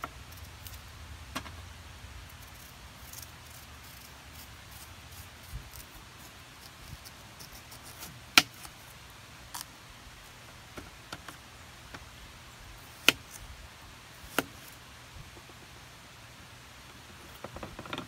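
Knife and stainless steel tray clicking and knocking while a Korean melon is peeled and sliced by hand: a handful of sharp, isolated clicks over a faint hiss. Just before the end, a quick cluster of small clatters as the knife and fork are set down on the table.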